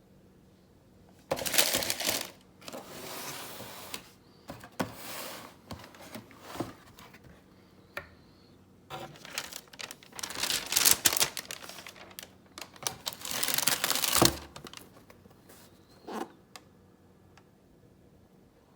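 Shoebox packaging being handled: paper rustling and crinkling in several bursts, mixed with sharp clicks and taps. There is one dull thump about two-thirds of the way through.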